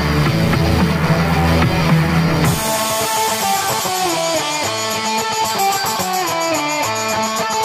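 Background music with guitar and drums. About two and a half seconds in, the heavy low end drops out suddenly and a lighter passage of plucked guitar notes carries on.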